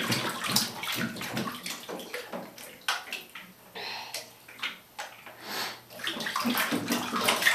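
Bathwater splashing and sloshing in a bathtub, stirred by a small child's hands and legs, in irregular splashes that grow louder again near the end.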